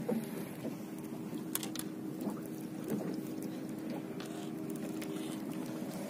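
A small fishing boat's engine running steadily, with a few faint ticks.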